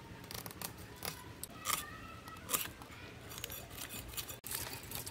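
A knife scraping and clicking against small fish as they are scaled and cleaned by hand: scattered short, light scrapes and ticks.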